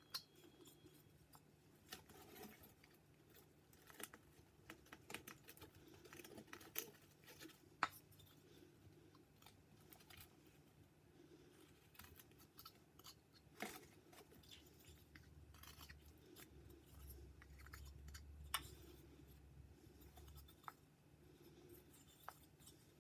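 Whittling knife cutting a small wooden figure: faint, irregular snicks and scrapes as the blade pares off shavings, with a few sharper clicks.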